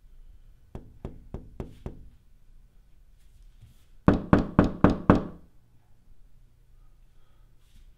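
Knocking on a door: five soft, evenly spaced knocks about a second in, then, after a pause, five much louder knocks about four seconds in.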